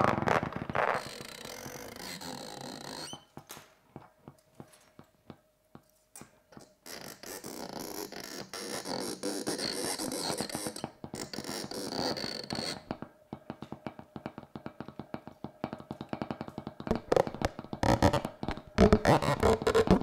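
Amplified found-object sound from a metal electric-fan guard handled and scraped against a microphone. Sparse clicks over a faint steady hum give way to a hissy scraping stretch, then quick rattling clicks that grow louder near the end.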